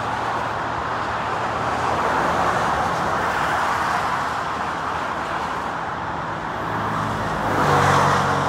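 Steady rush of highway traffic, mostly tyre noise from passing cars. Near the end one vehicle passes closer and louder, and its engine hum can be heard under the tyre rush.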